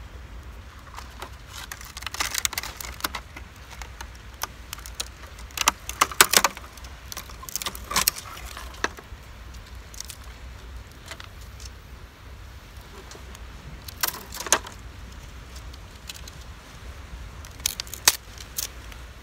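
Small metal objects clinking and rattling as they are handled, in short clusters of sharp clicks, loudest about six and eight seconds in, over a steady low rumble.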